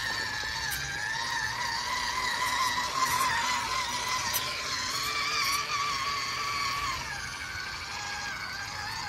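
WPL C44 RC truck's electric drive motor and gearbox whining while it drives through a muddy puddle; the pitch wavers with the throttle and drops lower about seven seconds in.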